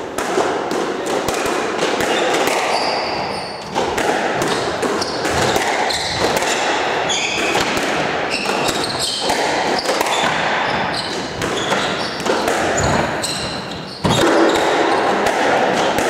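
Squash rally: the ball cracking off racket and walls again and again, with sneakers squeaking on the wooden court floor, all echoing in the enclosed court.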